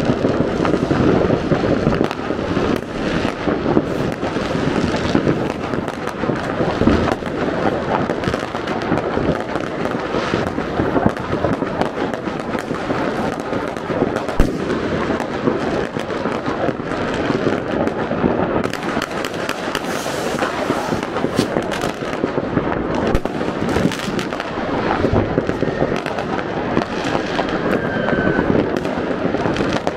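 Fireworks and firecrackers going off in a dense, continuous barrage: countless overlapping bangs and crackles, with one sharper bang about halfway through.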